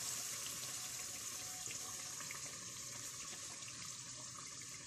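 Chicken gravy simmering and sizzling in oil in a cooking pot: a steady hiss with tiny scattered crackles.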